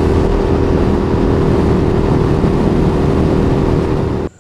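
Indian FTR 1200's V-twin engine running at a steady highway cruise, heard through a helmet mic inside the chin curtain along with wind and road noise. It cuts off suddenly near the end.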